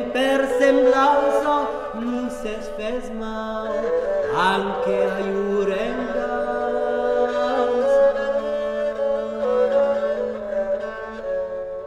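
A male voice singing an improvised medieval epic-style melody, accompanied by two bowed rebabs that hold steady low notes beneath it. About four seconds in, there is a quick rising swoop in pitch.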